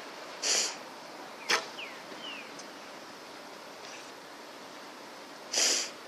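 A shot from an Olympic recurve bow at 28 lb draw weight: a single sharp crack about a second and a half in. Short hissing bursts come just before it and again near the end.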